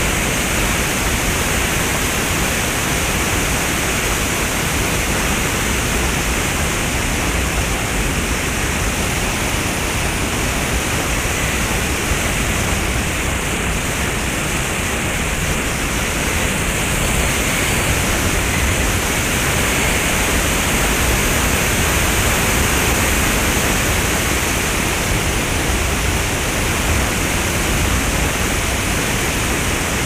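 Steady rushing road noise from a GAZ-31029 Volga driving along a gravel road: tyres on gravel and wind, with no clear engine note standing out.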